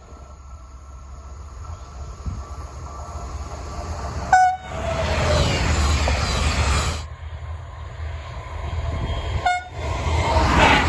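DSB IC3 diesel trainsets sounding their horns as they run past. There is a short horn note about four seconds in, then the loud rush of the train going by. After a sudden cut, a second IC3 gives another short horn note near the end, followed by the rush of its passing.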